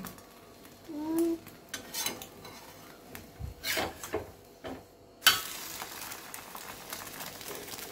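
Spatula scraping and tapping against a frying pan as an egg omelette is worked loose and folded, then a steady sizzle that starts suddenly a little after five seconds in.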